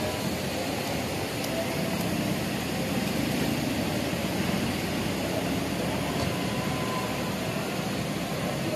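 Diesel engine of a large intercity coach running steadily at close range, a continuous rumble with a whooshing edge.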